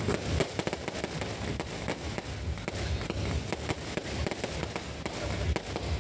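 Aerial fireworks bursting and crackling overhead: a dense, continuous run of sharp pops.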